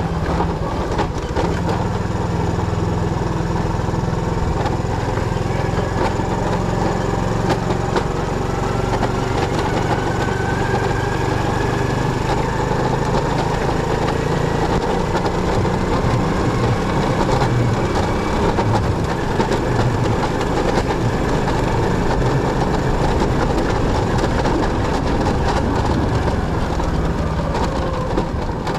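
Motorcycle engine running steadily, its pitch slowly rising and falling.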